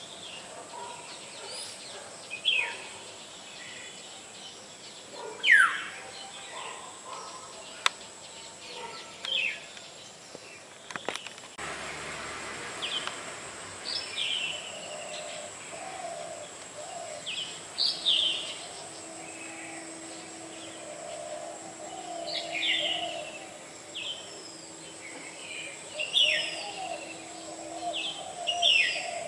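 Black-hooded oriole calling: short, sharp down-slurred calls repeated every second or two. The background changes abruptly about twelve seconds in, after which the calls come more often.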